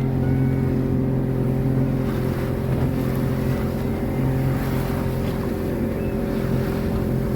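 Motorboat engine running at a steady speed, a constant even hum that holds without change.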